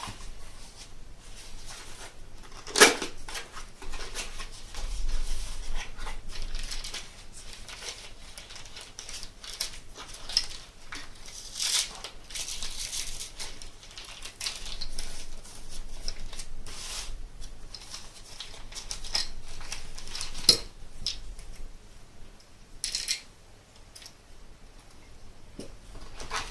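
Unboxing handling: packaging and plastic-bagged accessories rustling as they are taken out of a box, with intermittent sharp clicks and knocks of small plastic parts, the loudest about three seconds in and another near twenty seconds in.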